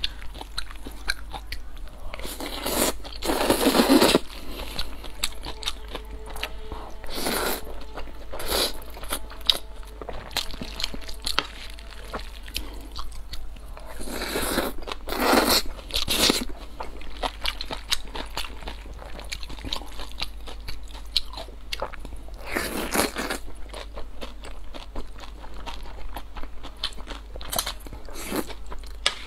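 Close-miked eating of stir-fried wide glass noodles (lapi): several loud slurps of noodles, with wet chewing and small mouth sounds between them.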